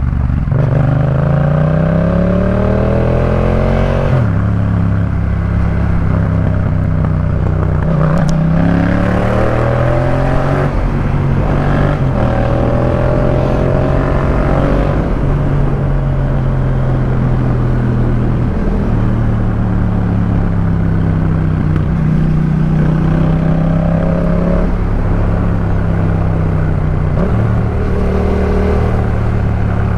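Exhaust of a 2018 Yamaha MT-07's parallel-twin engine through a Jeskap K4 full aftermarket system. It accelerates with a rising pitch, drops sharply about four seconds in as if for a gear change, and climbs again from about eight seconds. It then runs at a fairly even pitch, with a couple of brief dips near the end.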